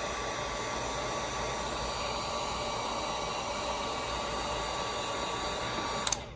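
Hot-air tool blowing steadily with a faint whine, heating the front of a phone to loosen a glued part; it switches off near the end.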